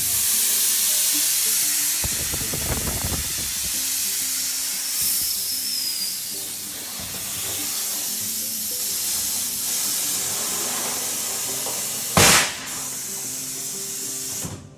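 Compressed air hissing steadily as a tyre is inflated, cutting off abruptly near the end, with one loud bang about twelve seconds in. Background music plays underneath.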